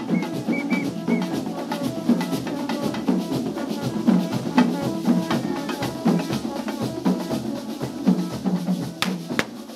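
Carnival street-band drumming: snare and deep drums beating a fast, steady rhythm, with one sharp crack near the end.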